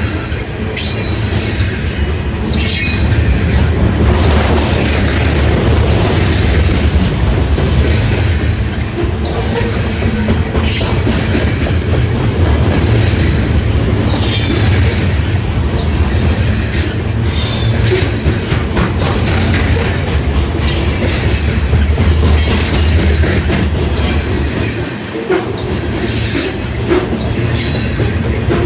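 Loaded grain train cars rolling past with a steady, heavy rumble, crossed every few seconds by sharp clicks and clatter from the wheels.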